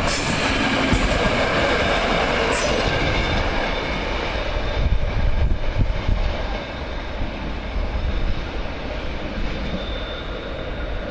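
Red NSB passenger train rolling past close by, its wheels rumbling on the rails with a few brief high screeches in the first three seconds. The sound then fades somewhat as the train pulls away down the line.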